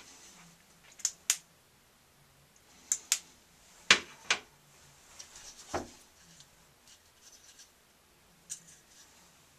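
Sharp clicks and light knocks of a hard plastic Price Pfister shower valve cartridge being handled, mostly in pairs, the loudest about four seconds in.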